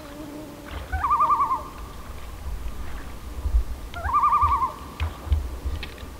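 Common loon tremolo calls, a fast wavering laugh heard twice, about a second in and again about four seconds in, with a low rumble underneath.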